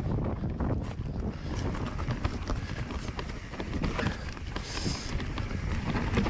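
Mountain bike ridden over a rough, rooty trail: tyres rumbling and bumping, with a steady clatter of knocks and rattles from the bike. A short high-pitched sound about five seconds in.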